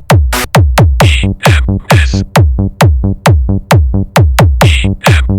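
Loud electronic dance remix with a deep, booming kick drum close to three beats a second. Bursts of hissy clap-like hits come in about a second in and again near the end.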